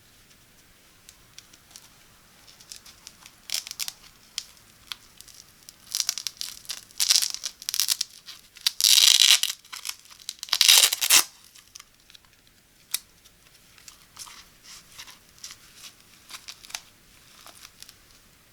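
Packaging being torn and crinkled open by hand: scattered crinkles and small clicks, building to two long, loud tearing sounds about nine and eleven seconds in, then lighter crinkling.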